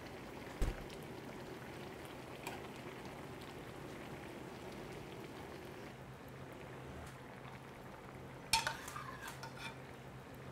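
Budae-jjigae bubbling in a shallow metal pan while a steel ladle stirs it, with a single knock of the ladle early on. Near the end the metal ladle clinks and rattles against the serving dish as sausage, ham, rice cakes and dumplings are pushed into the stew.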